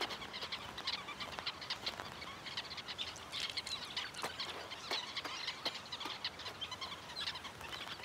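A flock of sociable weavers chattering, with many short overlapping chirps running on continuously.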